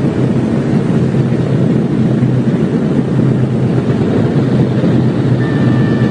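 Steady drone of a B-17 Flying Fortress's four radial engines, heard from inside the aircraft as it rolls out after landing.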